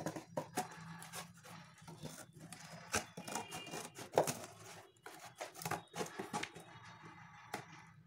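Scissors cutting through a cardboard box: irregular snips and crunching clicks as the blades bite through the card, over a low steady hum.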